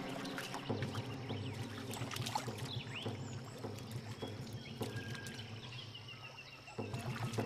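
Water splashing and sloshing in irregular sharp strokes as two male platypuses fight at the surface of a river.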